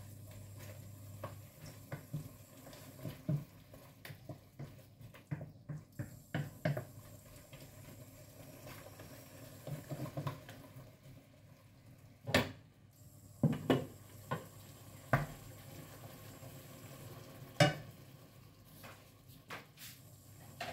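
A spatula stirring and scraping food around a wok over a faint sizzle, with many small clinks and several sharper knocks of the utensil against the pan, loudest in the second half.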